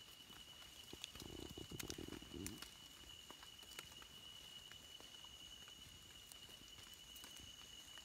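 Near silence: a faint, steady high-pitched insect trill, with faint scattered ticks as a knife scrapes soil off mushroom stems. A brief low, muffled sound comes about a second in and lasts just over a second.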